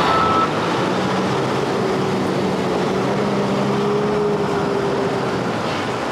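Diesel engine of a semi-truck pulling an end-dump trailer, running as the rig drives off, with a low engine hum that rises a little in pitch midway and then eases. A bit of music cuts off about half a second in.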